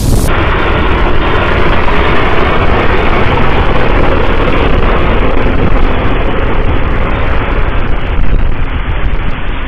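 Loud steady running rumble of a passenger train heard from its open window, with wind buffeting the microphone.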